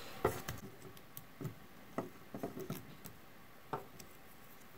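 Light, irregular clicks and rustles of fingers handling thin wire leads and covering their soldered joints.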